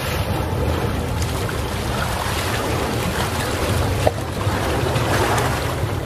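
Calm sea waves washing onto the shore, the wash swelling about a third of the way in and again near the end, over a steady low rumble.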